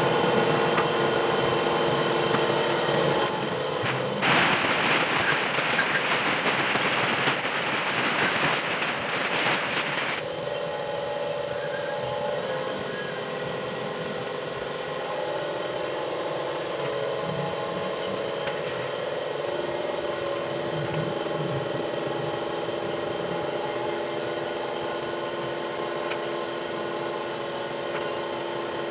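Compressed air hissing loudly from a blow gun for about six seconds, starting about four seconds in and cutting off sharply; this is the usual way of blowing a gasoline-washed CVT pulley dry. A steady mechanical hum runs underneath, and a fainter high hiss lingers a while after the blast stops.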